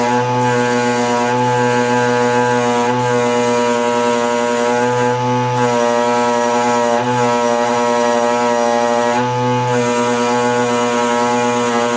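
Background music with a sustained, droning tone and a low bass line that changes every few seconds.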